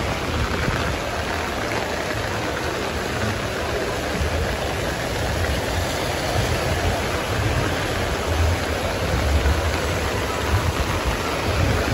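Steady hiss of rain falling on a wet street, with a low, uneven rumble of traffic underneath.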